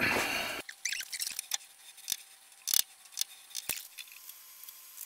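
Sharp metallic clicks and taps at irregular intervals, about seven in all, as a cast cylinder is handled and seated in a lathe's four-jaw chuck for truing its face, with a faint steady tone underneath. There is no motor running.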